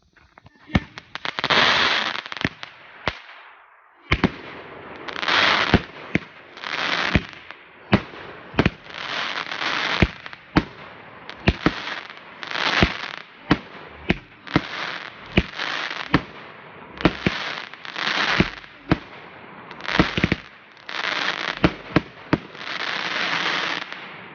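Lesli Black Wolf 16-shot Pyro Mould firework battery firing shot after shot: sharp reports, each followed by about a second of dense crackling.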